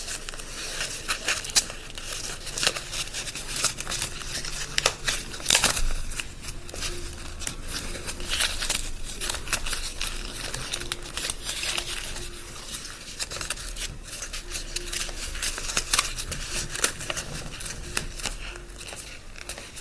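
A sheet of paper being folded by hand into a paper airplane: rustling and crinkling, with many short sharp crackles as folds are pressed and creased flat.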